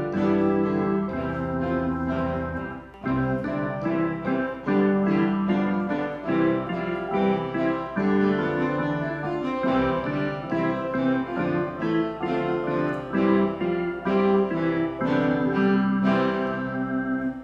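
Piano music: a run of notes over sustained chords, with no speech, which stops abruptly.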